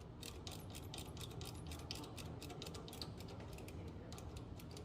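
Rapid, irregular mechanical clicking and ticking, several clicks a second, over a steady low hum.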